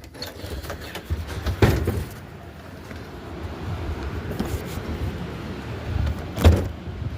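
Strong windstorm gusts buffeting the microphone with a low, rough rumble, rising and falling, and two loud blasts about a second and a half in and near the end.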